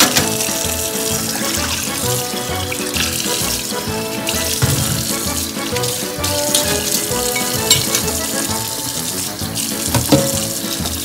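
Tap water running into a stainless steel sink as a bowl and spoons are rinsed, with a few sharp clinks of the spoons. Background music plays throughout.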